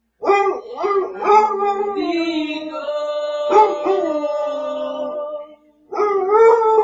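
A basset hound howling in long, wavering, drawn-out notes. It breaks off about five and a half seconds in, then starts another howl.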